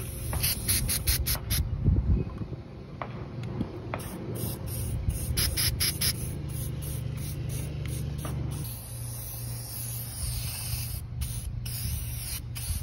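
Aerosol spray-paint can hissing in repeated short bursts as black paint is sprayed onto a canoe hull.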